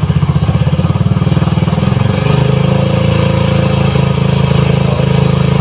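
Yamaha Mio i125 scooter's single-cylinder four-stroke engine through an aftermarket AI-Tech power-pipe exhaust with a loud, open-muffler tone. It idles with a pulsing exhaust, then is revved lightly about two seconds in and held at the higher speed, well short of half throttle.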